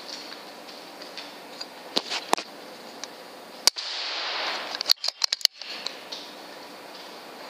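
Sharp clicks and knocks from an FX Impact M3 .25 air rifle being handled. The loudest is a single crack about three and a half seconds in, followed by a brief hiss, then a quick run of clicks a second later.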